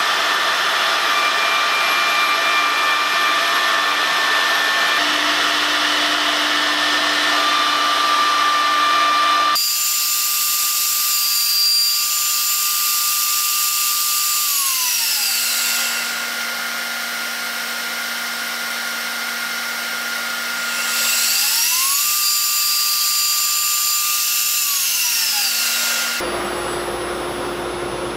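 Wood router cutting a wooden dowel that turns between lathe centres on a jig, with its dust-extraction hose drawing air: a loud machine noise with several steady whines. About ten seconds in it changes to a cleaner motor whine that falls in pitch and gets quieter midway, then rises back up. A different steady hum follows near the end.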